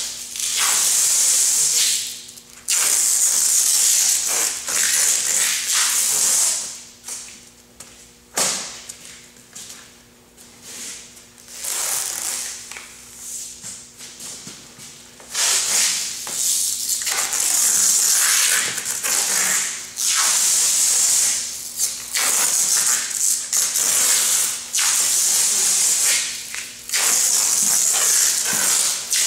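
Uline adhesive tape pulled off its roll and wrapped around a composite pipe-repair coil: a loud screeching hiss in repeated long pulls of a few seconds each, with short pauses between.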